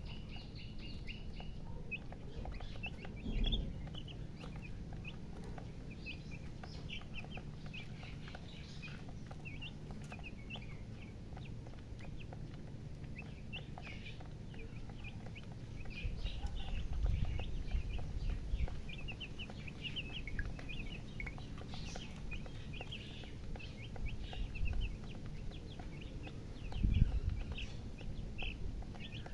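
Baby chicks peeping: many short, high cheeps coming quickly and irregularly, several birds at once. Low rumbles rise under them a few times, loudest near the end.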